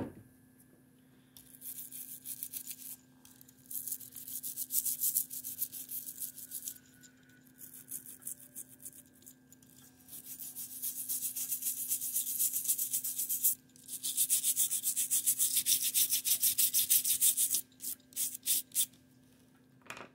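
Rapid back-and-forth scrubbing strokes on a 1941 Argus AA camera during cleaning, in several runs of a few seconds each with short pauses between. There is a sharp click at the very start and a few clicks near the end.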